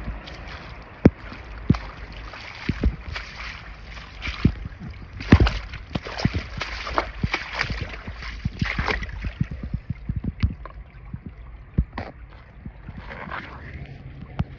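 Spring water gurgling and splashing as it runs out of a stone-lined channel over rocks, with many irregular sharp splashes and drips, busiest for the first ten seconds and thinning toward the end.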